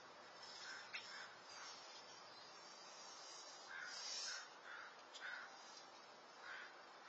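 Faint outdoor ambience: a series of short, distant bird calls, about one or two a second, over a steady hiss, with a brighter, higher call about four seconds in.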